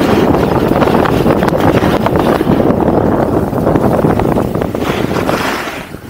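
Heavy wind buffeting on an action camera's microphone at speed down a ski run, mixed with the scrape of a snowboard edge carving packed snow. The noise is loud and constant, easing briefly near the end.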